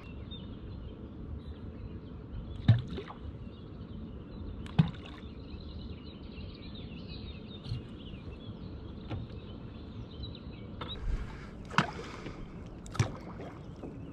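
Water lapping against the hull of a small fishing boat, with a few sharp knocks on the boat, the loudest two about three and five seconds in and two more near the end.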